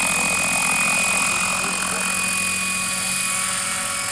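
Radio-controlled scale model Bell 212 helicopter in flight, its rotor and drive running with a steady hum and a high, steady tone over a rushing hiss.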